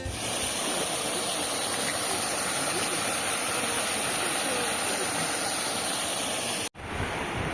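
Steady rush of falling water from a waterfall, an even, bright hiss that cuts off abruptly near the end.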